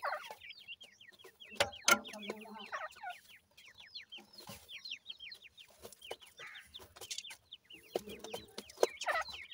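Francolin (teetar) chicks calling: a quick run of short, high, falling peeps, several a second, with a few lower clucks and sharp clicks mixed in.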